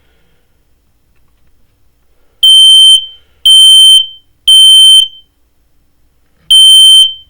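Smoke detector sounding its alarm on test, super duper loud: a shrill beep three times about a second apart, a pause, then the next round starting near the end. This is the three-beep temporal pattern of a smoke alarm. The first beep comes about two and a half seconds in, after a quiet start.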